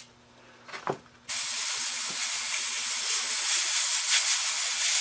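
Compressed air blowing onto a freshly sanded wooden bat, a steady hiss that starts abruptly about a second in, clearing sanding dust off the carved logo.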